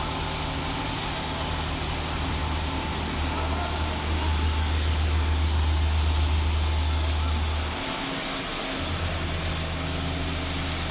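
An engine running steadily with a low drone that grows louder in the middle, drops away briefly about eight seconds in, and picks up again.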